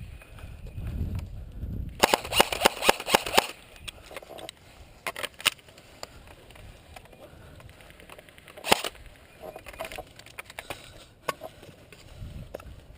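Airsoft guns firing: a rapid burst of shots lasting about a second and a half, starting two seconds in, then scattered single shots, the loudest near nine seconds in.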